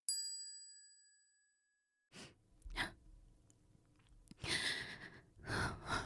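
A single bright chime rings out and fades over about a second and a half. Then a woman sniffles and takes shaky, breathy breaths while crying, in several short bursts.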